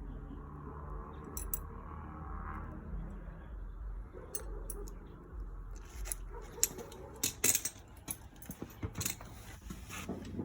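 Irregular sharp clicks and clinks in the second half, over a low steady hum.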